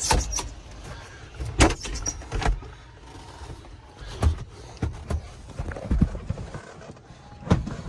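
Irregular knocks, bumps and clicks of handling inside a small aircraft's cockpit, about eight of them spread unevenly, with the engine not running.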